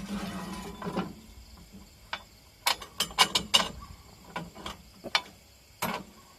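Sharp clicks and knocks from sawmill parts being handled and set down during assembly, with a short scraping slide at the start and a quick run of clicks near the middle.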